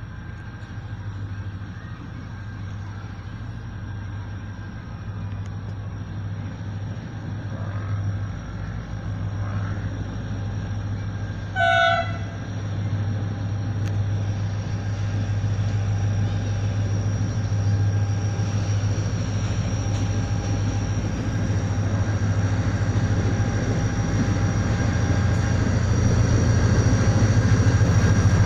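Pakistan Railways diesel locomotive hauling a passenger train as it approaches, its low engine rumble growing steadily louder. About twelve seconds in it gives one short horn blast.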